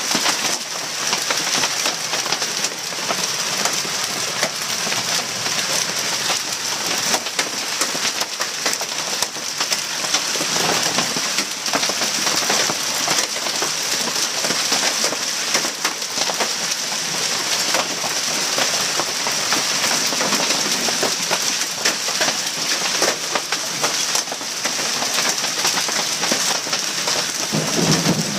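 Heavy hail and rain pelting down on surfaces: a steady dense patter with many sharp separate hits throughout, from large hailstones.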